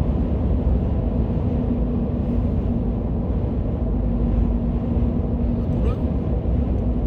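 Steady low road and engine rumble inside a moving car's cabin, with a constant low hum running under it.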